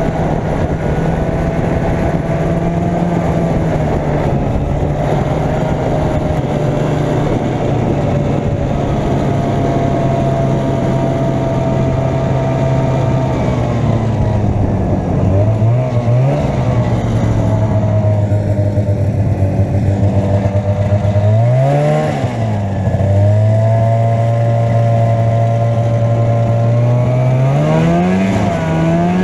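Arctic Cat Jag 440 snowmobile's two-stroke engine running at steady speed, its note dipping and climbing back three times, about halfway through, about three quarters through and near the end, as the throttle is eased off and opened again.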